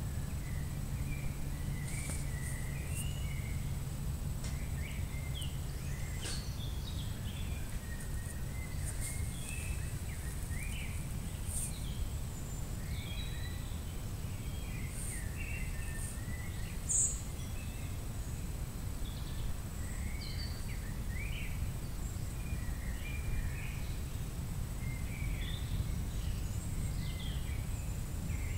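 Outdoor background: scattered short bird chirps over a steady low rumble, with a faint steady high whine.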